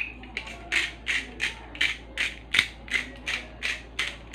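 Hand-twisted spice grinder grinding seasoning in a steady rhythm of short gritty strokes, nearly three a second.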